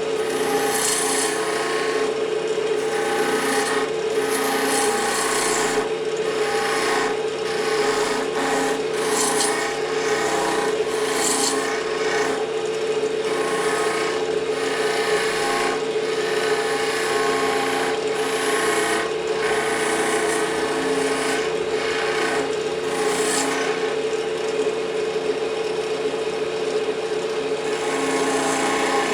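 Wood lathe running with a steady hum while a hand-held turning tool cuts the spinning fatwood (resinous pine). The scraping and cutting noise swells and fades in repeated strokes every second or two.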